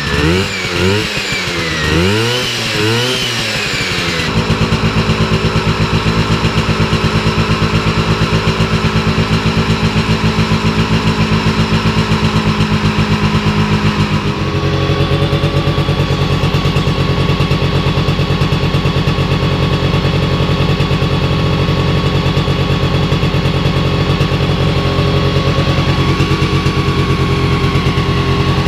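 Cuyuna air-cooled twin-cylinder two-stroke engine running on a stand: it is revved up and down about once a second for the first few seconds, then held at a steady speed, its tone changing about halfway through.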